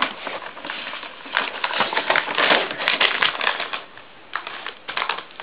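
Paper gift bag and wrapping paper crinkling and rustling in quick, irregular bursts as an English Pointer roots in the bag and noses at a wrapped present. It is loudest in the middle, eases off briefly, then starts again near the end.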